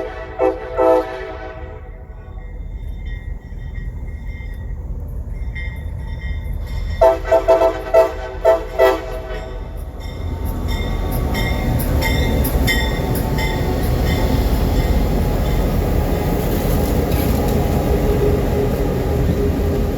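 CSX diesel locomotive air horn sounding short blasts in the first second, then a quick run of about six short blasts between seven and nine seconds in. From about ten seconds in, the rumble of the locomotives' engines and wheels grows loud and stays loud as the power move comes by.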